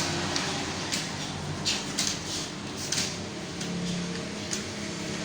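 Computer keyboard keys being typed in an irregular patter of clicks, over a steady low hum.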